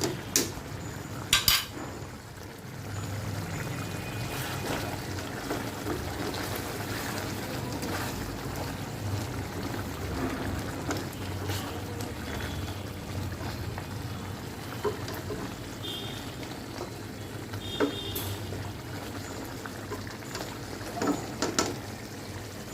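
Chicken curry simmering and bubbling in an uncovered pot, with a few sharp metal clinks against the pot.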